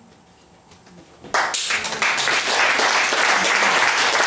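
A moment of hush, then audience applause breaks out suddenly about a second in and keeps going.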